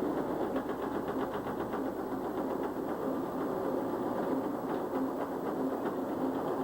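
Steady mechanical running noise with a fast, even clatter of light ticks, strongest in the first half.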